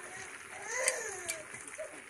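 Egg batter sizzling in an oiled pan. A young child's high voice rises and falls in the background about a second in.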